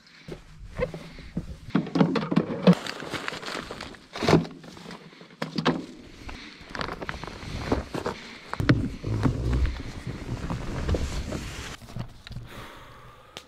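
Irregular knocks, thumps and rustling of hands and objects handled in and around a plastic portable fridge as it is wiped clean.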